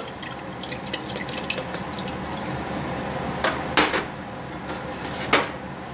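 Soy sauce trickling in a thin stream into a simmering sauce in a stainless steel pot, with the sauce bubbling and crackling. A few louder pops come in the second half.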